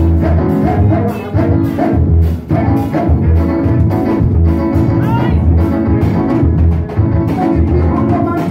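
Loud music with a deep bass line and a steady drum beat.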